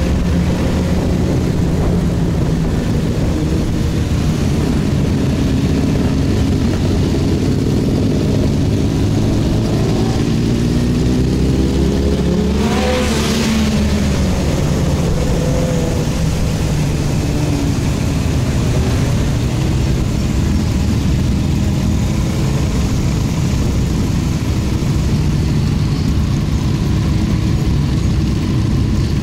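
Yamaha XT1200Z Super Ténéré's parallel-twin engine running under way, its pitch drifting gently, over steady wind and road rumble. There is a brief swell of noise about halfway through.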